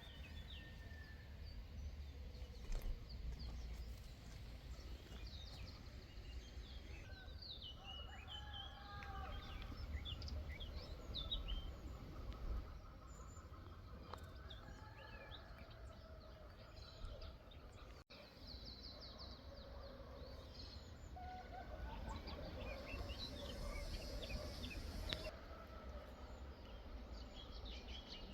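Several birds chirping and calling in short, repeated notes over a low rumble of wind or background noise. The sound drops out for a moment partway through.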